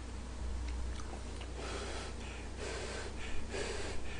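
A person slurping a mouthful of hot yaki udon noodles: a quick series of short breathy sucks and puffs, about two a second, starting about one and a half seconds in.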